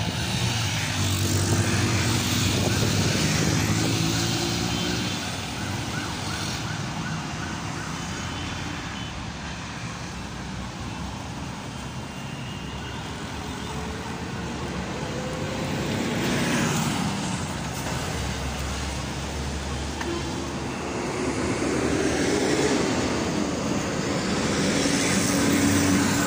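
Road traffic at a busy intersection: the engines of passing cars, motorcycles and a bus running steadily over tyre noise. One vehicle passes close about sixteen seconds in.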